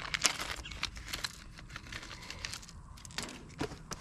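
Small plastic packet of oil pump bolts crinkling and tearing as it is opened by hand, in irregular sharp crackles.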